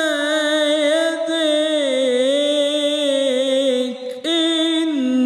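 A solo male voice singing an Islamic devotional chant (ibtihal) into a microphone, holding long notes with wavering melismatic ornaments. About four seconds in he breaks off for a quick breath, then starts the next phrase on a higher note.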